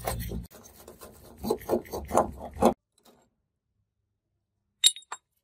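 Screwdriver working a screw out of a cast-metal TV stand bracket: a brief low hum, then a run of short scraping strokes, metal on metal, that cuts off suddenly just under three seconds in. Two sharp clicks near the end.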